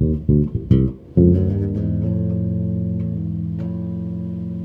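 Ibanez TMB605 five-string electric bass played through a Peavey 500-watt head and 2x10 cabinet: a few quick plucked notes, then about a second in a note is struck and left ringing, slowly fading.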